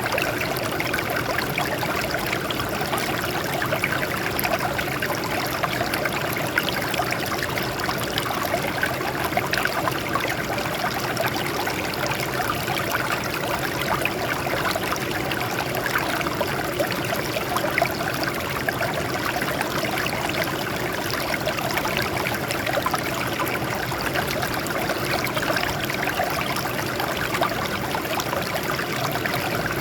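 Water flowing and trickling over rocks in a steady stream, with a busy splashing texture.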